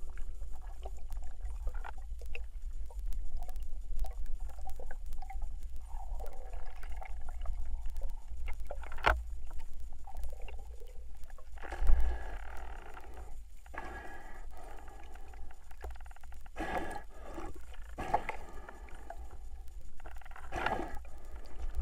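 Underwater sound picked up through a camera's waterproof housing: a steady low rumble with scattered sharp clicks and knocks, a thump about halfway through, and several short swishes of moving water.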